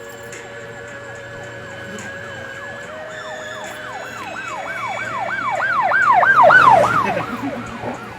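Emergency vehicle siren in yelp mode, rising and falling about three times a second. It grows louder to a peak late on, then drops in pitch and fades as it passes.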